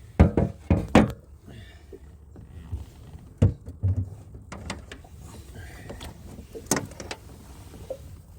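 Knocks and thumps on a fishing boat as a big pike is landed, three loud ones in the first second and a few more spread through the rest.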